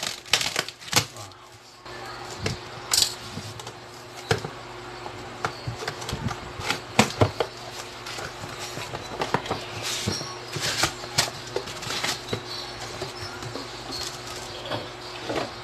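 Plastic air-column packaging crinkling and a cardboard box being handled as a boxed inverter is unpacked: irregular crackles and clicks, some louder than others, over a faint steady hum.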